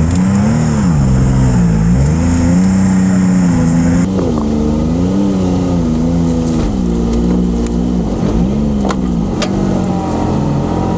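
Can-Am Maverick side-by-side's engine pulling under short, repeated bursts of throttle, its pitch rising and falling over and over. There are a couple of sharp knocks about nine seconds in.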